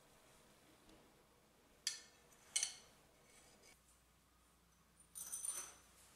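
Metal shower-door hardware pieces clicking together in the hand: two sharp clicks about two seconds in, then a brief ringing clatter about five seconds in.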